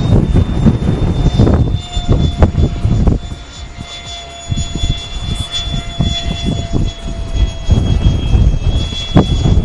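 Wind buffeting the microphone in heavy gusts, easing for a couple of seconds midway. Under it a thin, steady high whine comes from a radio-controlled model airplane's motor in flight.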